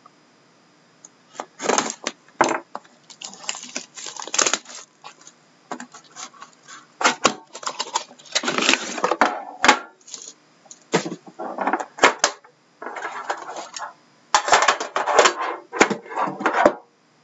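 Plastic shrink wrap being slit and torn off a cardboard trading-card hobby box in irregular bursts of crinkling and rustling, with sharp clicks and knocks as the box is handled and its tin is pulled out and set on the desk.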